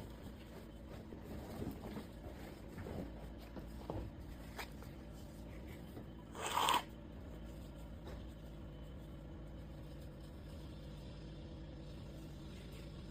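A young woman sneezes once, an allergy sneeze, as a single short sharp burst about halfway through. A steady low hum runs underneath, with a few faint clicks and rustles before the sneeze.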